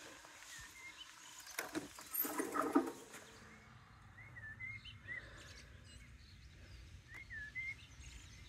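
Small birds chirping in short whistled notes that rise and fall, several in quick succession. About two seconds in there is a brief louder sound with a few pitched notes, over a low steady background noise.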